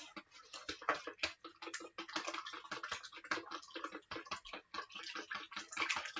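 Metal wire whisk beating pancake batter in a plastic bowl, a quick, uneven run of clicks, several a second, as the whisk strikes the bowl while lumps are worked out of the batter. A faint sizzle from the pancake cooking in the frying pan runs underneath.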